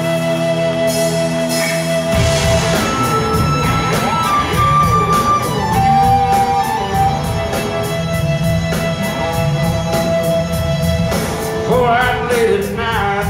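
Live rock band in a concert hall: a held keyboard chord, then drums and bass come in about two seconds in with a steady beat under sliding guitar or synth lines. A male voice starts singing near the end.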